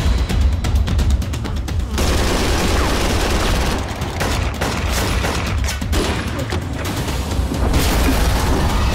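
Rapid bursts of automatic gunfire over dramatic music, with the shots densest in the first two seconds.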